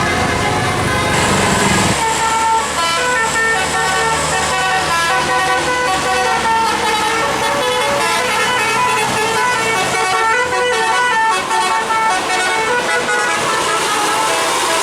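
Bus 'telolet' musical horn playing a quick tune of short notes stepping up and down, over the bus's engine running in the first couple of seconds.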